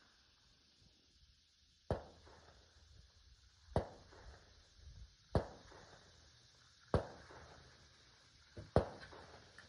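Five sharp gunshot reports, one every one and a half to two seconds, each dying away quickly.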